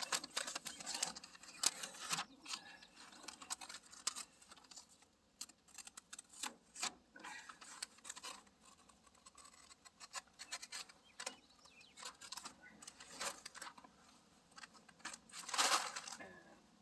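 Masking tape being peeled off a vehicle's painted body panel around fresh truck bed coating: scratchy rubbing and crackling with scattered sharp clicks, and a longer, louder rasp near the end.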